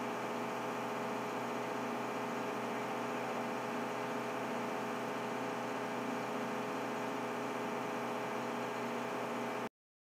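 Steady machinery hum with several held tones over a constant hiss, unchanging throughout, as heard aboard a large heavy-lift vessel. It cuts off abruptly near the end.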